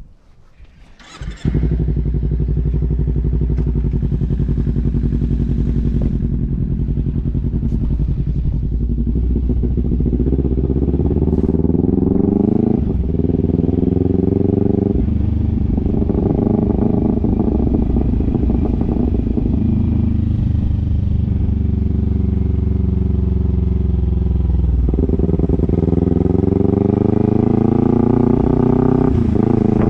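Kawasaki Ninja 300's parallel-twin engine, which starts about a second in and runs steadily, then pulls away. The revs climb and drop back several times with gear changes, ease off for a few seconds, and climb again.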